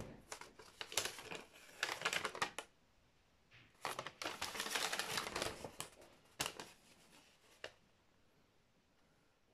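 A sheet of paper instructions rustling and crackling as it is handled and turned over, in two spells of a couple of seconds each, followed by a couple of short crisp crackles.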